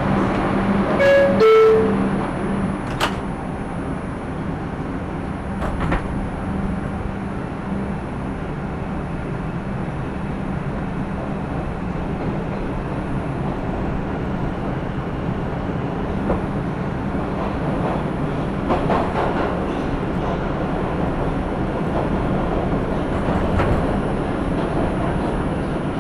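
New York City subway car: the two-note door chime sounds about a second in, the second note lower, as the doors close. Then the train pulls away and runs steadily through the tunnel with a continuous rumble and a few sharp clicks from the rails.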